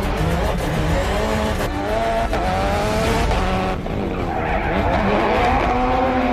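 Ford Fiesta rally car drifting in circles, its engine revving up and down while the tyres squeal and skid.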